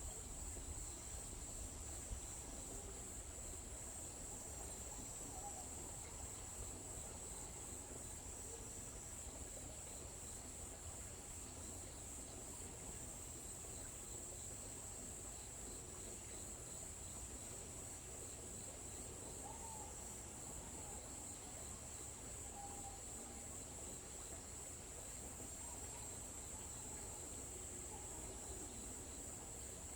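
Forest ambience: a steady high-pitched insect chorus, like crickets trilling without a break, with a few faint bird chirps about two-thirds of the way in.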